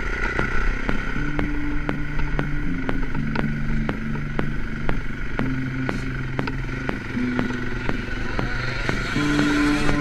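Electronic music with a fast, steady beat, about three beats a second, over a bass line that steps between notes.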